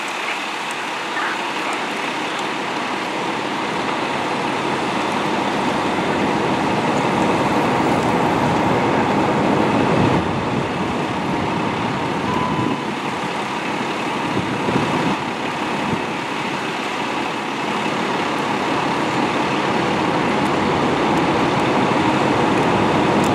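Steady hum of idling vehicle engines and street traffic, with a faint steady tone running through it.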